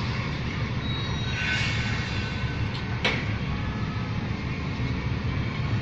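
Pile-boring rig's engine running with a steady low rumble, and one sharp click about three seconds in.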